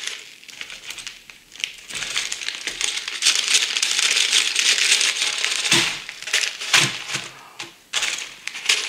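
Clear plastic zip bags full of small plastic building bricks crinkling and rustling as they are handled. The bricks shift inside with a light clatter, and a few sharp knocks come in the second half as bags are set down on a wooden table.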